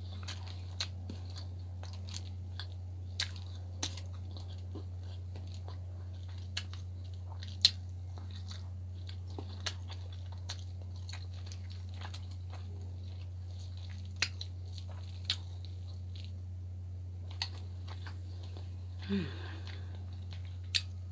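Close-miked chewing of flaky baked salmon, with scattered sharp clicks and smacks, over a steady low hum. A short low hum of the voice comes near the end.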